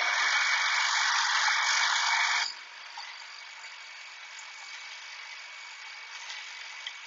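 Shopsmith-driven grinding wheel spinning with a steel chisel held against it, a steady hiss and whine of steel being ground. About two and a half seconds in the sound drops suddenly to a much quieter steady hiss.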